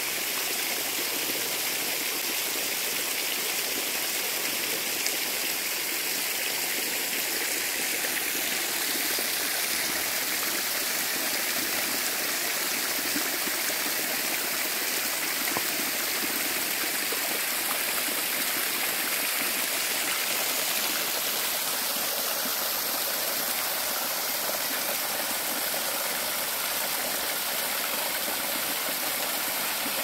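Small woodland waterfall and brook: water running and splashing steadily over rock ledges into a shallow pool.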